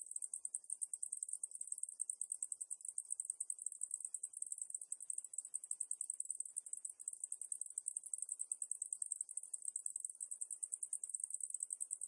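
Cicadas singing: a steady, high-pitched buzzing chorus that pulses rapidly, several times a second.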